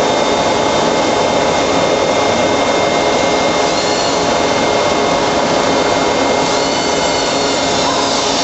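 Large hydraulic forging press and shop machinery running: a loud, steady hiss and drone with a few faint high whines and no blows or impacts.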